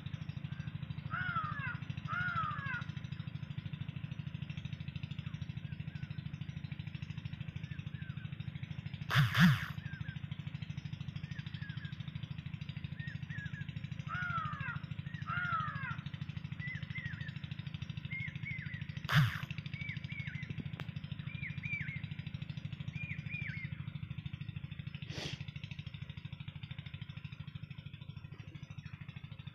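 Sharp metal knocks of engine parts and tools during the fitting of a piston into the cylinder liner: a double knock about a third of the way in, the loudest sound, and two single knocks later. A bird calls again and again with short falling chirps over a steady low hum.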